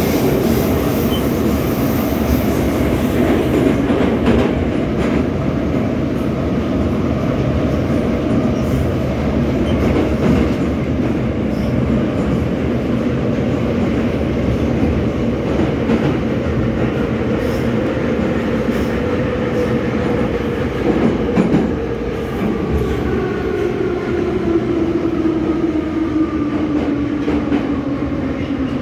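Metro train running through a tunnel, heard from inside the car: a loud, steady rumble with clicking and rattling from the wheels on the rails. Over the second half the motor whine falls steadily in pitch as the train slows, braking as it comes into a station.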